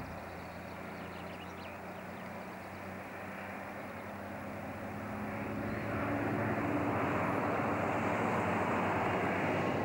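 Diesel engine of a loaded logging truck droning steadily, growing louder from about halfway through as the truck approaches.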